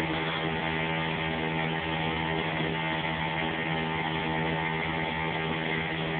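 Motorboat engine running at a steady speed, an even unbroken drone.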